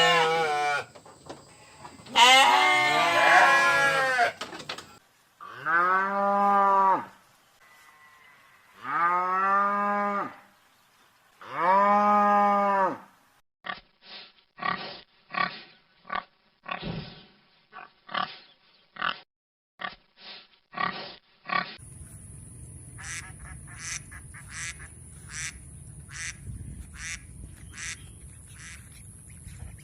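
A string of recorded farm animal calls, one after another: loud, drawn-out pitched calls in the first half, then a run of short, quick grunting pulses, then thin high squeaks near the end.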